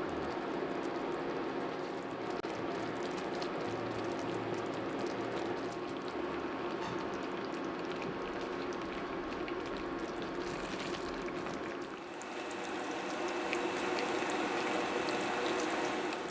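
Thick caramel mixture of butter, brown sugar, cream and corn syrup boiling in a stainless saucepan: a steady bubbling with many small pops, over a steady hum. It is at a gentle rolling boil, cooking up toward the 240°F soft-ball stage.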